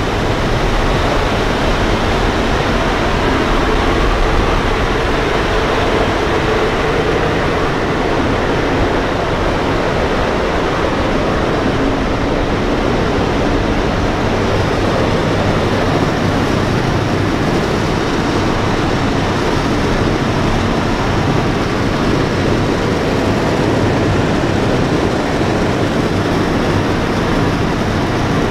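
Steady drone of a B-17 bomber's four Wright R-1820 Cyclone radial engines in cruise flight, heard inside the fuselage together with the rush of air past the airframe.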